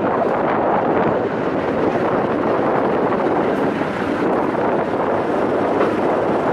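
A trial truck's engine running hard under load as the truck climbs a steep dirt mound: a loud, steady roar with no breaks.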